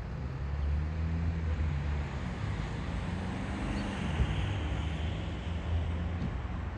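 Steady low engine rumble with road traffic noise, and a vehicle swelling past between about three and five seconds in.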